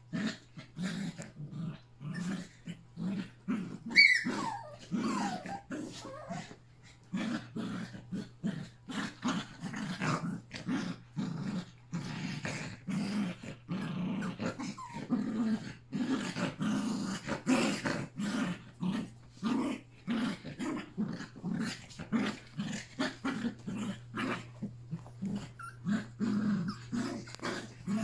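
Yorkshire terriers play-growling as they wrestle, a run of short growls one after another. About four seconds in, a sharp high yelp falls in pitch.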